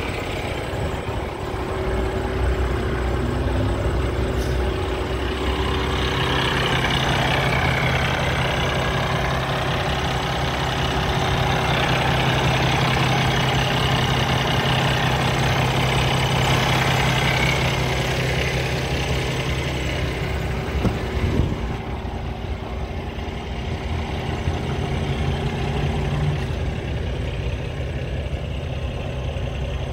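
2016 Freightliner semi truck's diesel engine idling steadily. A few short clicks come about two-thirds of the way through, after which the idle sounds quieter and duller, heard from inside the cab.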